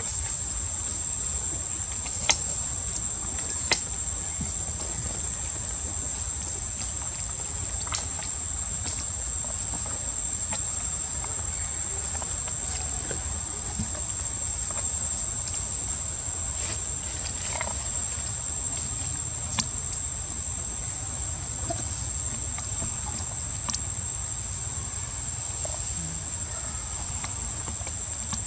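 Insects trilling in a steady, unbroken high-pitched chorus, with a few sharp clicks scattered through it and a low rumble underneath.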